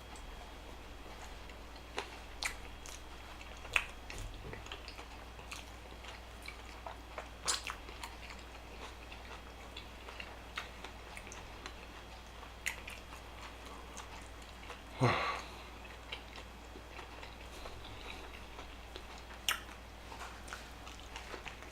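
Close-up chewing and biting of fast food, with scattered wet mouth clicks and light crunches. About fifteen seconds in there is one louder mouth sound that falls in pitch.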